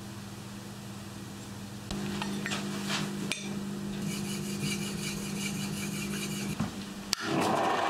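A steel blade being honed by hand on a sharpening stone: scraping strokes back and forth over a steady low hum. A click near the end, then a grinder wheel starts up with a loud, steady rushing whir.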